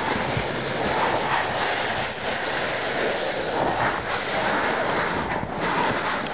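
Steady rushing noise on a handheld camera's microphone, wind and handling noise while the camera is carried through a narrow rock crevice.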